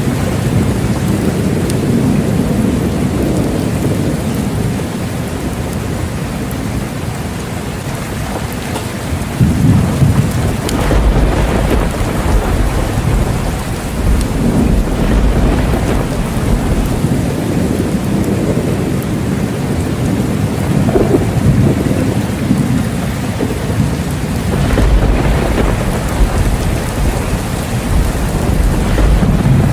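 Steady heavy rain falling, with rolls of thunder rumbling deep and low. The rumbles swell about a third of the way in and again near the end.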